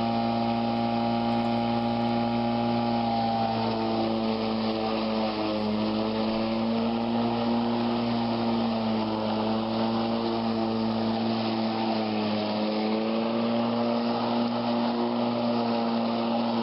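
Greenworks 20-inch corded electric lawn mower running at full speed while cutting grass: a steady motor-and-blade hum that sags a little in pitch now and then under load.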